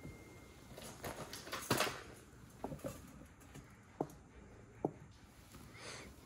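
Gold bangles being set down one by one on a cloth and knocking against each other: about seven light taps and clinks, the loudest about two seconds in.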